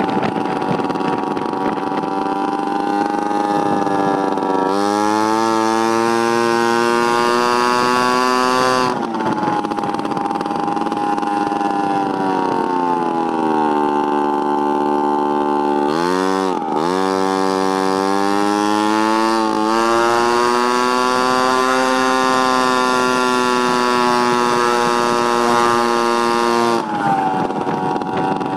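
Honda Urban Express moped's small two-stroke single-cylinder engine running under way, its note rising and falling with the throttle. The pitch sags low while slowing about halfway through, dips sharply for a moment, then climbs back and holds steady at cruising speed.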